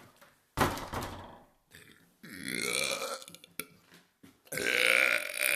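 A woman belching loudly three times: a short burp, then a longer one, then the longest and loudest near the end.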